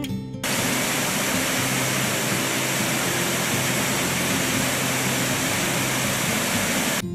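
Cane Creek Falls swollen by heavy rain: a steady, dense rush of water from the flooded waterfall. Guitar music cuts off about half a second in and comes back at the very end.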